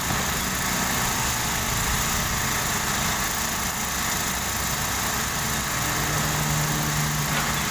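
Komatsu PC78US mini excavator's diesel engine running steadily, mixed with motorbikes and a car passing on the road alongside; a low hum grows louder for a second or so about six seconds in.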